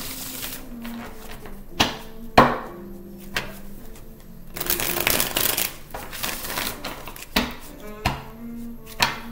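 A deck of tarot cards being shuffled by hand. There are stretches of papery shuffling at the start and again about five seconds in, and several sharp taps of the cards scattered through.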